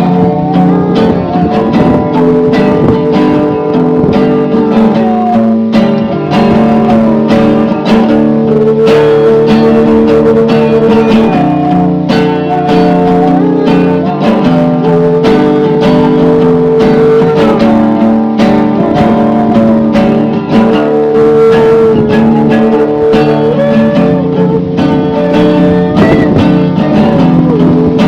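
Band music: strummed acoustic guitar chords under a sustained melody line, with a steady beat.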